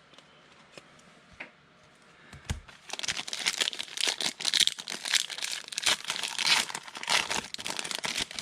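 A trading card pack's foil wrapper being torn open and crinkled by hand, a dense crackling that starts about three seconds in after a few light clicks.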